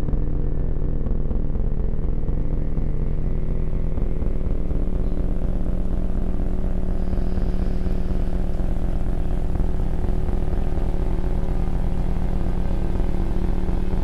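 Steady low droning rumble with several held hum tones, with no breaks or sudden events: the sound piece that accompanies the photo slideshow.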